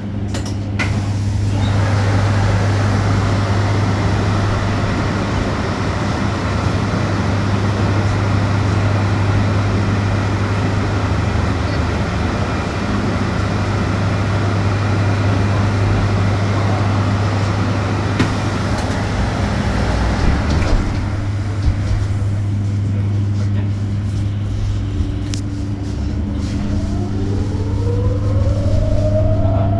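Electric bus heard from inside, with a steady low hum and road and tyre noise while it drives. The road noise drops away about two-thirds of the way through as the bus slows, and near the end a rising whine from the electric traction motor comes in as it pulls away again.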